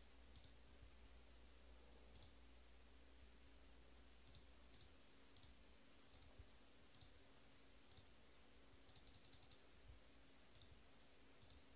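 Near silence: faint, sparse clicking in short quick runs over a steady low hum.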